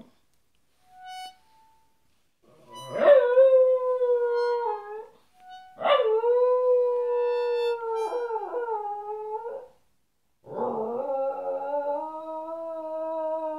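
Cairn terrier howling in long, drawn-out 'singing' howls: three in a row, each swooping up at the start and then held at a steady pitch, the last still going at the end.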